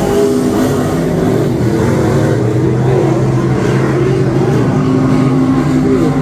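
Several dirt-track stock car engines running around the oval, their pitch wavering up and down as the cars go through the turns.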